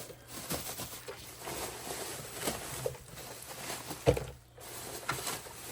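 Handling noises from unpacking a boxed RC tank: scattered rustles, light scrapes and small clicks of packaging and plastic, with one sharper knock about four seconds in.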